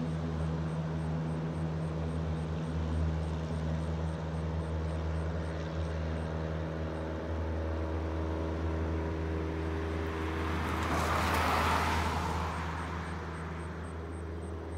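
Floatplane's propeller engine at takeoff power, a steady drone as it runs across the lake and lifts off. A broad hiss swells and fades about eleven seconds in.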